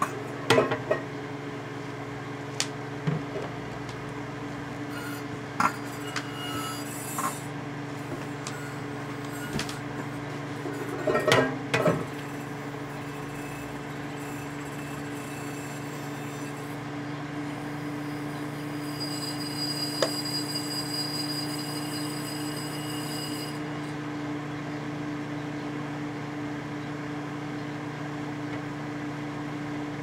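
1988 Samsung microwave oven running with a steady low hum while it heats a mercury vapor light bulb. Several sharp pops and crackles come in the first twelve seconds, and a faint high whine joins for a few seconds past the middle.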